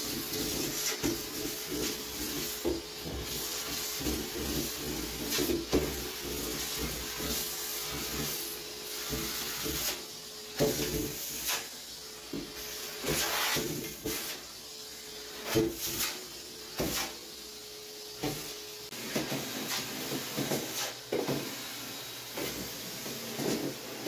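Vacuum cleaner running, its hose and metal wand sucking up hair from a bathtub, with frequent short knocks of the wand against the tub. The steady hum drops away about nineteen seconds in.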